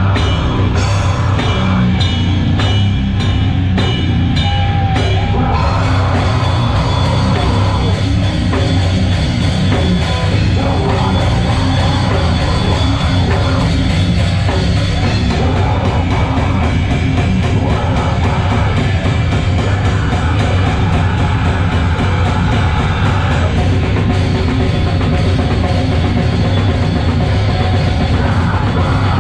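Live heavy metal band playing loud: a dense wall of distorted sound over a pounding drum kit, with a run of fast, even drum hits through the middle stretch.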